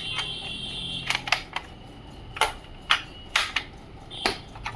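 Sharp plastic clicks and snaps from a jumbo multi-compartment plastic pencil box as its buttons and compartment lids are worked, about nine clicks at irregular intervals.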